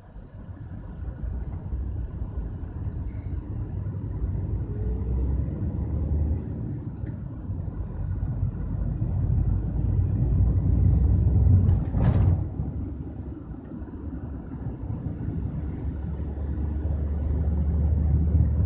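Low rumble of a car driving, heard from inside the cabin, swelling and easing. About twelve seconds in there is one short, louder whoosh.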